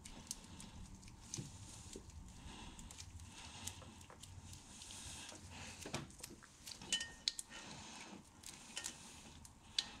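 Faint rustling and handling noise from an engine wiring harness and its wire loom being worked by gloved hands, with a few sharper clicks and taps, most of them in the second half.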